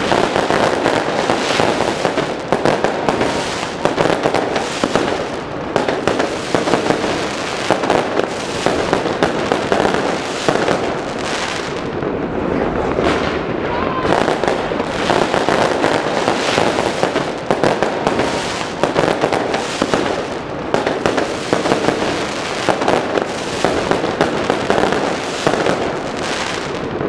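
Fireworks going off without a break: a dense, continuous stream of crackling and popping bursts.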